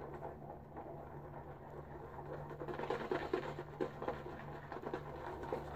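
Boar-bristle shaving brush stirring Williams mug soap lather in a bowl: soft, irregular scratching of the bristles against the bowl and the wet lather. This is the lather being worked past its airy, bubbly first stage into a denser, slicker lather.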